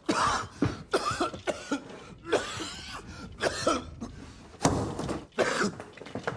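A man coughing over and over, a quick run of short coughs with brief gaps between them.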